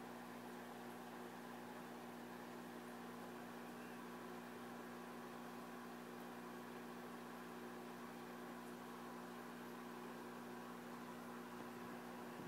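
Faint, steady electrical hum with a few fixed low tones and a light hiss over it, unchanging throughout.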